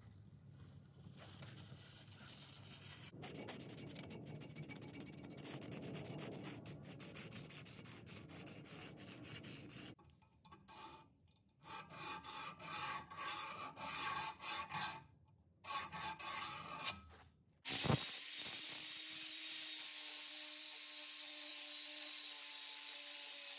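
Rasping strokes of steel being worked by hand, a rough scraping noise and then a series of separate strokes. About eighteen seconds in, an angle grinder starts and grinds the crowbar-steel blade: a loud, steady grinding noise with a high motor whine.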